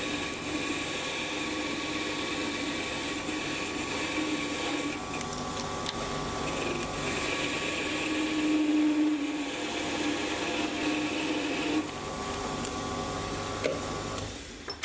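Sieg C3 7x14 mini lathe running with a steady motor whine while a tangential high-speed-steel tool takes a facing cut on a spinning steel workpiece. The sound drops somewhat about twelve seconds in and stops near the end.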